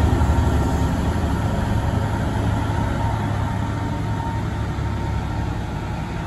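NIR Class 201 locomotive's two-stroke V12 diesel engine working as it pushes its train away from the platform: a low steady rumble that fades gradually as the locomotive recedes.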